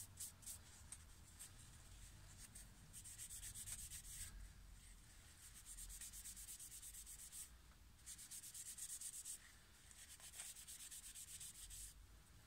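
Faint, rapid rubbing strokes of folded paper wiping sealer onto a small fluted fishing-float body, coming in short spells with brief pauses between them.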